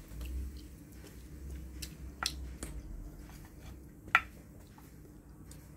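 Eating sounds: fried chicken being chewed, with a few light clicks and one sharp, ringing tap about four seconds in, made by wooden chopsticks against a ceramic bowl.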